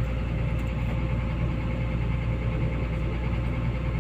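An engine idling steadily, with an even low hum and a faint constant whine above it.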